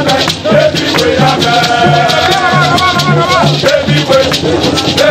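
A group of men singing together to a gourd rattle shaken in a steady rhythm, over a low regular beat; a singer holds one long note in the middle.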